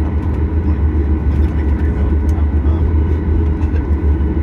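Steady cabin noise inside a Boeing 737 MAX 8: a deep rumble from the CFM LEAP-1B engines and airframe, with a few faint steady engine tones above it.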